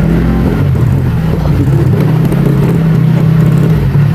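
TVS Ntorq 125 scooter's single-cylinder engine running while riding, the pitch dipping briefly with the throttle about half a second in, then holding steady.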